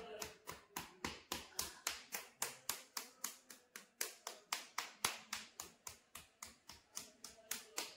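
Percussion hammering on a patient's body during manual therapy: a steady run of sharp, evenly spaced slapping strikes, about four to five a second.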